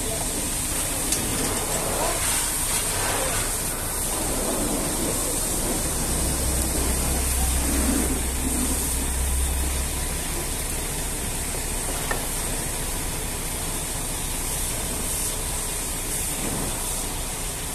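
Steady hiss of water spraying at a truck wash, with long-handled brushes scrubbing soap foam over a truck's windshield. A low hum rises for a few seconds midway.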